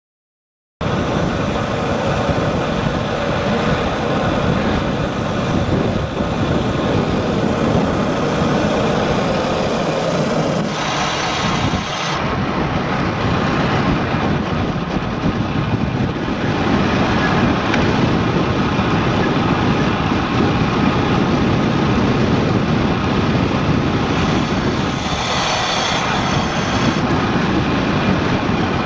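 Wind rushing over the microphone of a bike-mounted action camera on a fast road-bike descent. It starts abruptly about a second in, then stays loud and steady, changing a little in tone a few times.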